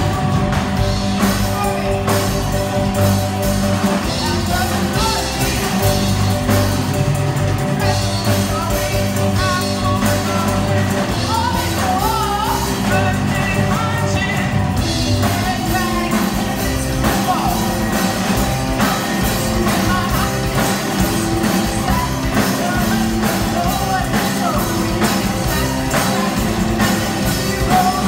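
Live band playing a song, with women singing into microphones over guitar, keyboard and drums.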